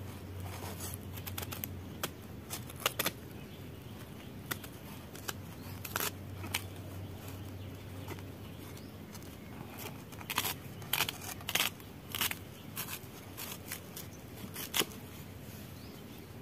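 Raw green mango being cut against an aruvamanai, a traditional curved cutting blade: scattered short, crisp cutting and scraping sounds, with a quicker run of cuts in the second half.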